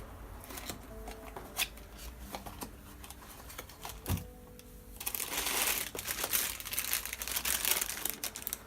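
Handling of a small parts package: a few light clicks and knocks, then about five seconds in the packaging is crinkled and crumpled as it is opened.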